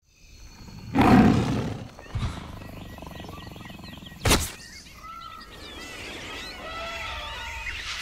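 Jungle sound effects: a big animal's roar of just under a second, about a second in, a short thud, and a sharp crack a few seconds later. Then many chirping, bird-like calls over a steady low jungle background.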